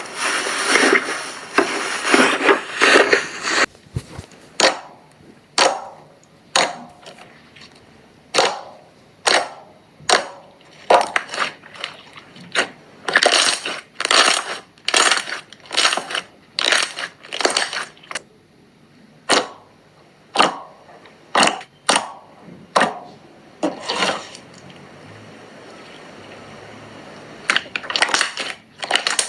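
Slime being squeezed and poked by hand: a string of short squishing, crackling pops, about one or two a second, with a quieter stretch near the end.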